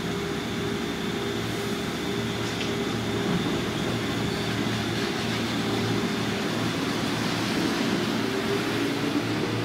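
A 205 series electric train standing at the platform, with the steady hum of its onboard equipment. It begins to move off near the end, a low tone edging upward.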